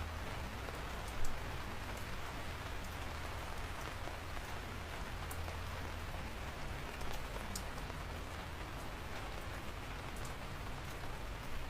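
Steady rainfall with scattered individual drops ticking close by, over a low rumble. One louder hit stands out about a second in.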